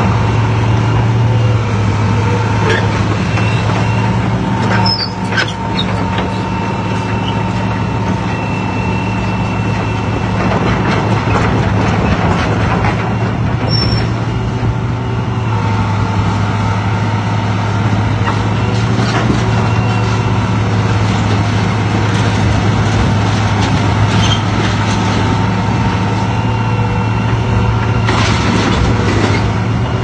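Tracked hydraulic excavator's diesel engine running steadily while it works on demolition rubble, with a couple of brief sharp knocks.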